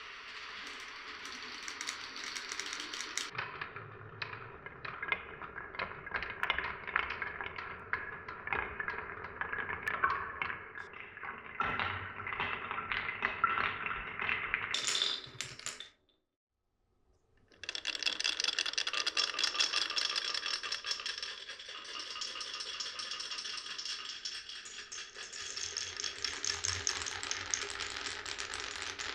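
Glass marbles rolling and clattering along a wooden marble run, a dense stream of clicks and knocks. Just past the middle the sound cuts out completely for about a second and a half, then the rolling and rattling resumes.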